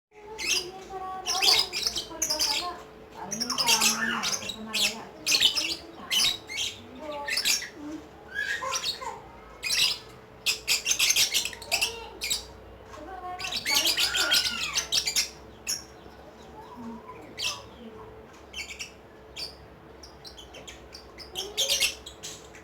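Lovebird chattering in a long 'ngekek' run: a rapid, dense string of high-pitched chirps and squawks that thins out over the last few seconds.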